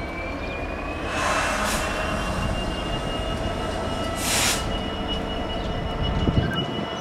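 Class 66 diesel locomotive (EMD two-stroke V12) rumbling along slowly. A thin high whine rises slowly in pitch, with two short hissing bursts about one and four seconds in.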